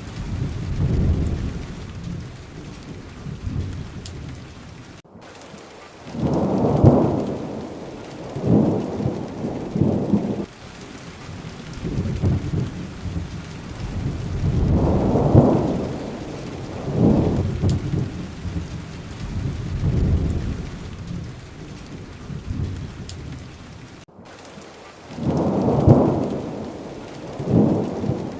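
Steady heavy rainfall hissing, with rolling thunder rumbling low in several long swells. The sound cuts out to silence for a split second twice.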